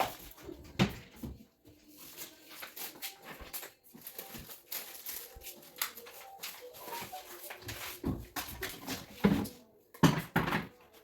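Irregular knocks and clatter of household items being handled and set down, with the sharpest knocks close together near the end.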